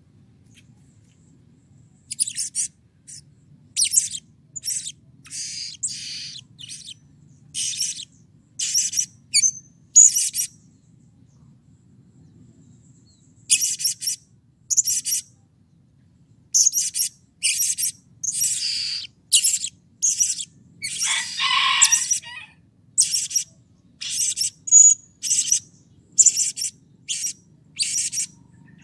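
Blue-crowned hanging parrot calling: quick runs of short, sharp, high-pitched chirps, with a pause of about three seconds near the middle and one longer, rougher call in the second run.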